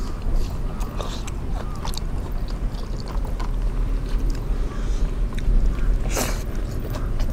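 People eating chicken biryani: chewing with small irregular clicks and scrapes over a steady low rumble, and one brief louder sound about six seconds in.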